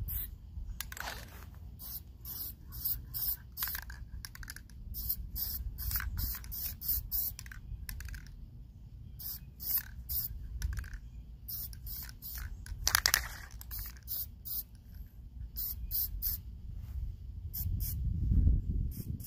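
Aerosol spray paint can hissing in many short bursts, one after another, with a longer, louder burst about two-thirds of the way through. A low rumble runs underneath and swells near the end.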